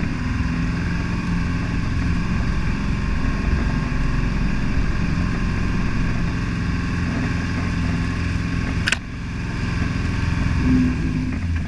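Toyota HJ61 Land Cruiser's 12H-T straight-six turbodiesel running steadily under load while driving a muddy off-road track, with tyres churning through mud. A single sharp click about nine seconds in.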